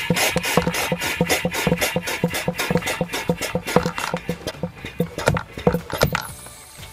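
Hand-pumped vacuum oil extractor being worked rapidly by its plunger handle: a fast, regular clacking of strokes that stops about six seconds in. The pumping builds the vacuum that sucks the oil out of the pierced oil filter.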